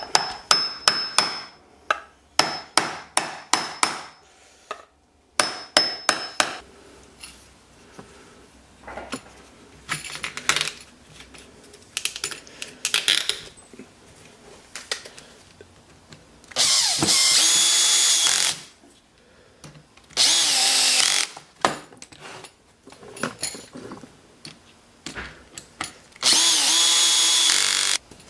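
A run of quick hammer taps, some with a metallic ring, then a power drill run in three bursts of about two seconds each, its whine shifting in pitch, with knocks and handling of wood between.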